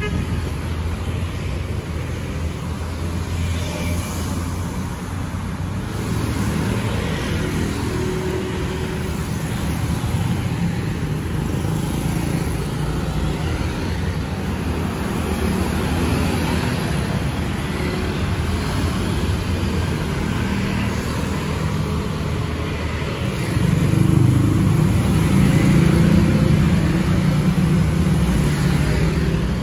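Street traffic: cars and motor scooters driving past with a steady engine and road-noise rumble. It grows louder about three quarters of the way through as scooters pass close by.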